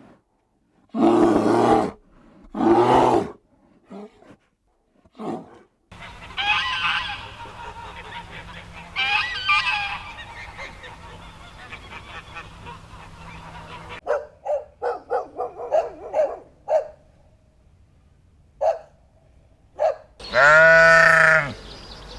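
Farm animals calling in a string of short clips: several loud calls in the first few seconds, then a noisy stretch with more calls, a quick run of short grunting or honking calls about two-thirds of the way in, and one long wavering call near the end.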